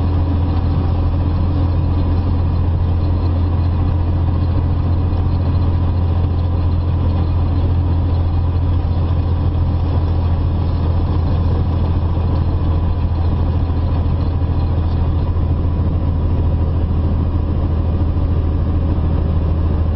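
Semi truck's diesel engine running steadily at road speed, a constant low drone with tyre and road noise over it.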